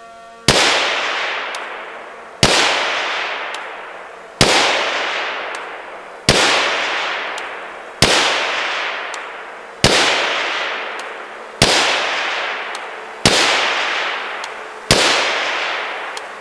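Suppressed 7.62×39 AK pistol (Zastava PAP M92 with an Omega 9K suppressor) fired in slow, deliberate single shots, nine in all, about two seconds apart. Each shot is a sharp crack whose echo trails off before the next one.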